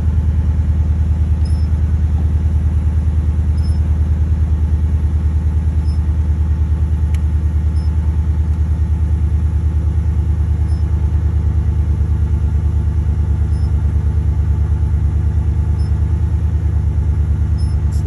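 2012 Chevy Silverado pickup engine idling steadily at about 700 rpm.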